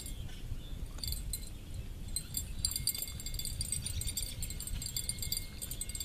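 Fishing reel clicking rapidly, starting about a second in, as a hooked carp is played on the rod, with a low rumble underneath.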